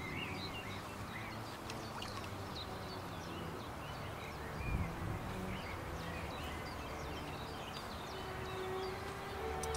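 Small birds chirping, many short high calls throughout, over a steady outdoor rumble of wind-like noise, with a soft low thump about halfway through.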